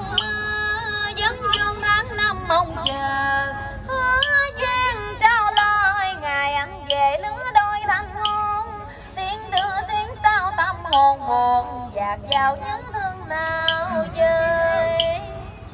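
A woman singing a Vietnamese folk song, with wavering, ornamented held notes, accompanied by a plucked guitar.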